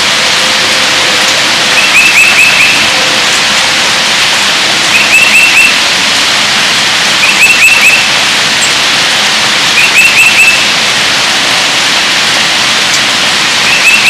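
Heavy rain falling steadily, with a songbird whistling a short phrase of four or five quick notes about every two to three seconds, five times.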